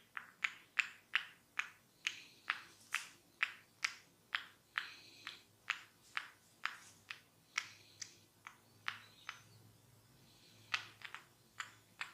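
Hair cracking in a head massage: a barber's fingers snap tufts of hair in a quick run of sharp cracks, about two or three a second. They pause for about two seconds near the end, then a few more follow.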